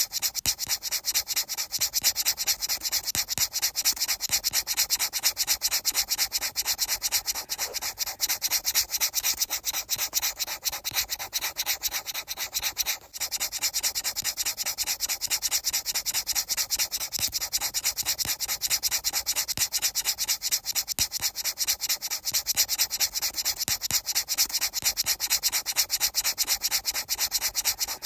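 Fast, even rubbing or scraping strokes, many per second, with a hissy, high-pitched sound. They break off for a moment a little before halfway, then carry on.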